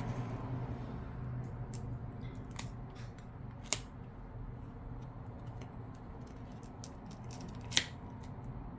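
Small sharp clicks and snaps as a metal pry tool works the glued plastic back cover off a Samsung A71 phone, the loudest about four seconds in and near the end, over a steady low hum.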